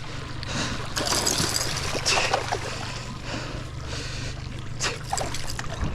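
Small boat's outboard motor idling with a steady low hum, under a wash of water noise with a few sharp splashes.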